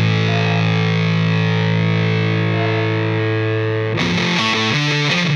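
Background rock music with distorted electric guitar. A chord is held for about four seconds, then it breaks into a run of quick changing notes.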